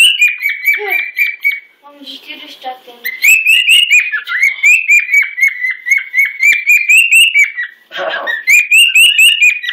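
Cockatiel whistling a loud, shrill song: long runs of quick, rising-and-falling whistled notes. The song breaks off briefly about two seconds in, with some lower chatter during that pause, and again shortly before the end.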